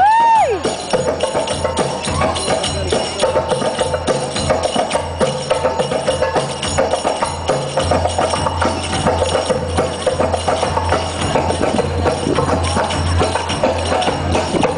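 Middle Eastern-style tribal-fusion dance music: a steady rhythm of hand drums and jingling, tambourine-like percussion over a sustained drone and bass. A brief high call slides up and back down at the very start.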